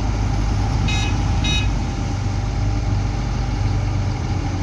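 Diesel engine of heavy construction machinery running steadily at a low, even hum. About a second in come two short, high beeps about half a second apart.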